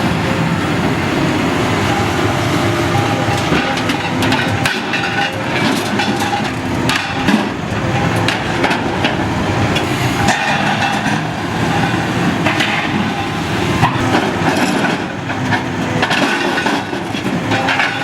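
Heavy construction machinery running, with frequent metallic clanks and cracking knocks over a steady engine noise.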